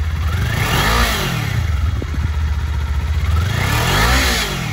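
Kawasaki Ninja 400's parallel-twin engine idling and revved twice, each blip of the throttle rising and falling back to idle, the first about a second in and the second near the end.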